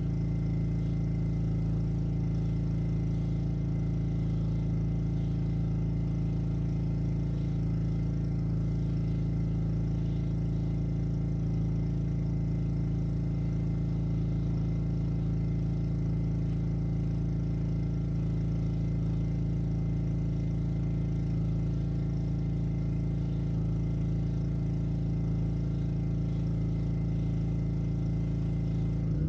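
Honda engine of a Black Max pressure washer running steadily at a constant speed.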